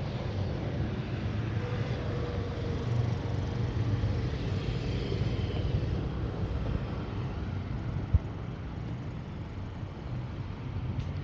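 Street traffic: a steady low hum of cars running along a city avenue, with one short low thump about eight seconds in.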